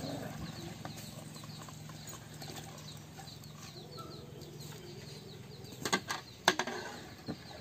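A long perforated steel ladle scooping par-boiled rice from a large metal pot knocks sharply against the pot twice, about six seconds in. Faint chirping runs underneath throughout.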